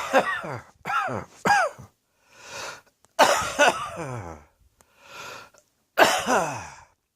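A person with a heavy cold and sore throat coughing in harsh bouts, each cough falling in pitch. There are three quick coughs in the first two seconds, a longer fit a little after three seconds and a last cough at about six seconds, with breaths drawn in between.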